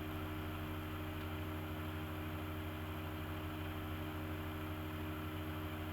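Steady low electrical hum with several fixed tones and a layer of hiss, unchanging throughout: background hum of the room or recording equipment.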